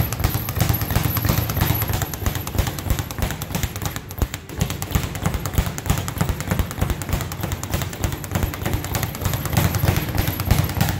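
Speed bag punched fast and continuously, the bag rebounding off its platform in a rapid, steady drumming of thuds.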